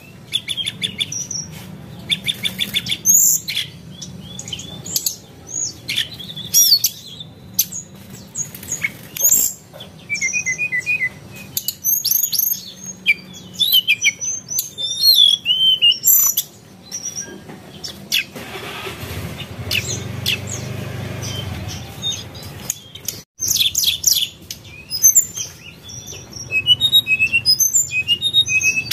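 Birds chirping and calling with many short, quick notes that glide up and down in pitch, and a few seconds of steady noise in the middle.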